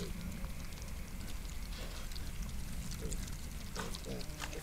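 Wild boar piglets rooting and foraging in gravelly ground, with crackling rustles and a few short, soft grunts or squeaks in the second half, over a steady low hum.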